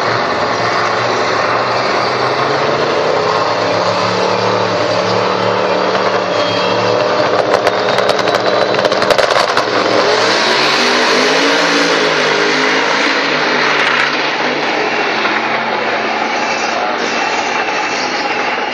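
Two drag-racing cars' engines running on the start line, then rapid popping about eight seconds in. A louder full-throttle launch and run follows from about ten to fourteen seconds, then the sound eases off.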